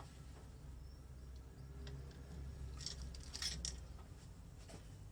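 Light metal clicks and clinks of sockets and tools being handled, a few scattered ones with the loudest about three and a half seconds in, over a faint low hum.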